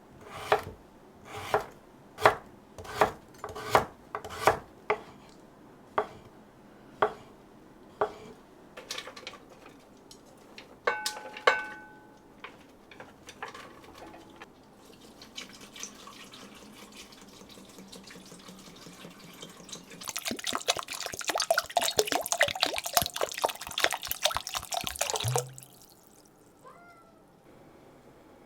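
Kitchen work: a knife knocking on a cutting board about once a second, then a couple of ringing clinks of dishware. Later a tap runs into the sink for about five seconds, the loudest sound here, and is shut off suddenly.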